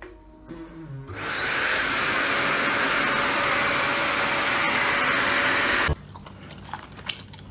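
Vacuum cleaner switched on: its motor spins up about a second in, then runs steadily with a thin high whine over the rush of air, and cuts off suddenly near the end.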